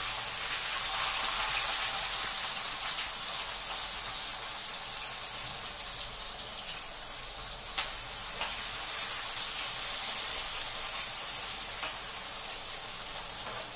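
Chopped onion and capsicum sizzling hard in hot oil in a kadai, a steady hiss that slowly eases off as they fry. A few clicks of a spatula against the pan come in the second half.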